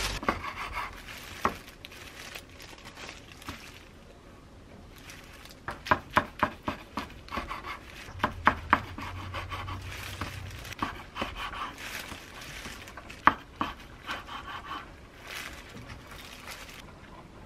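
A knife slicing through a seaweed-wrapped gimbap roll on a wooden cutting board: runs of sharp, crisp crackles and taps as the blade cuts the dried laver and meets the board, with a faint rustle between cuts.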